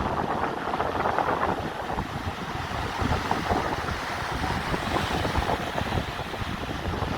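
Sea waves washing with wind buffeting the microphone, a steady rushing noise with irregular low rumbling gusts.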